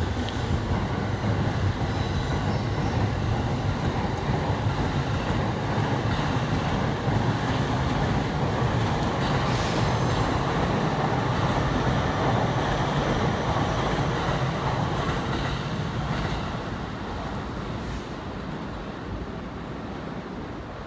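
A 15-car JR E231-series and E233-series electric commuter train pulling out and running past with a steady noise of wheels on rails, easing off over the last few seconds as it moves away.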